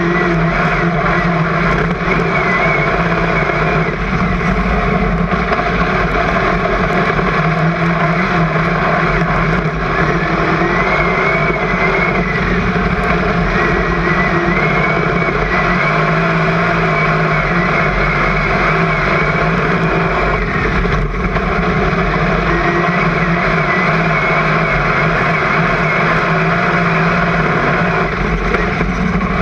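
Super Saloon speedway car's V8 engine running hard at racing speed, heard from inside the cockpit as a loud, steady drone with road and wind noise, and a faint high whine wavering in and out.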